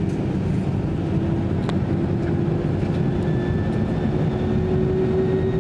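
Airliner cabin noise while taxiing: the jet engines hum over a steady rush of air, with one tone slowly creeping up in pitch. A single faint click comes about two seconds in.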